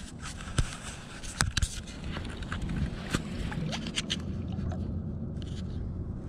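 Handling noise as a caught smallmouth bass is held up and turned by hand: a handful of sharp knocks and scrapes, the loudest in the first two seconds, over a steady low rumble.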